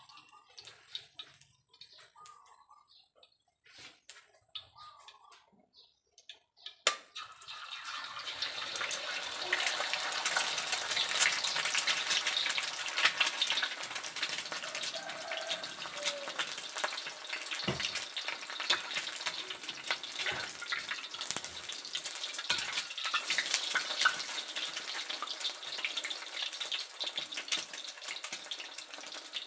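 An egg frying in a wok of hot oil. For the first few seconds there are only faint small sounds. About seven seconds in there is a sharp click, and the oil starts sizzling loudly with dense crackling and spattering that keeps going.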